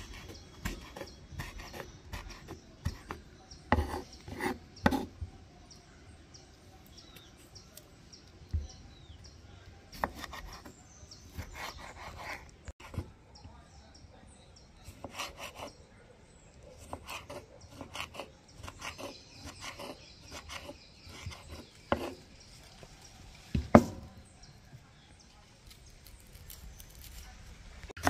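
Knife cutting vegetables on a wooden board: irregular taps and scrapes, with a few louder knocks, the loudest near the end.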